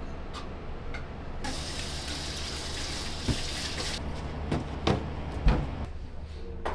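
Small restaurant room with a steady low hum. A hiss starts sharply, runs for about two and a half seconds, then cuts off. After it come several sharp knocks and clinks as plates are carried out and set down on a table.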